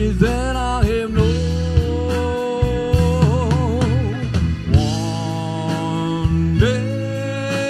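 A live rock band playing, with electric guitar, bass guitar, drums and keyboard. A lead line of long held notes that bend and waver with vibrato rises over the band.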